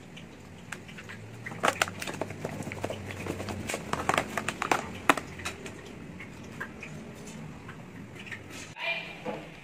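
Hands coating fish pieces in flour in a plastic tub: rustling, with a run of sharp clicks and taps from the plastic tub and its lid, thickest between about one and a half and five seconds in.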